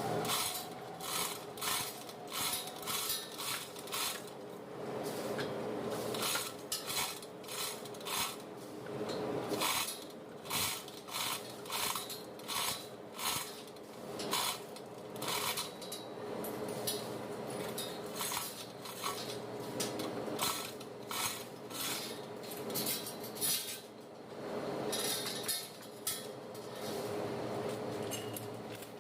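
Irregular metallic clinks, taps and knocks of hand tools and metal engine parts being handled, over a steady hum.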